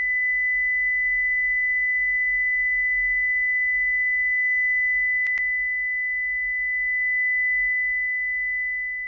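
Steady 2 kHz sine test tone played through a Subaru Sambar's door speaker, for comparing an untreated door with one fitted with sound-deadening. A short click about five seconds in marks the switch from the standard door to the deadened door, and the tone fades slightly near the end.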